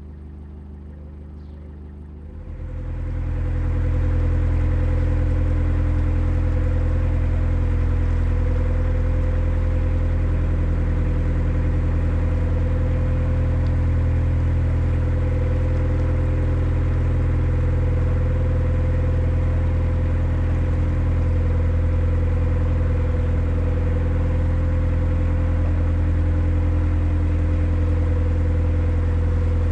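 Narrowboat's diesel engine running steadily as the boat cruises, heard from the stern deck. It fades up about two seconds in and then holds a constant speed.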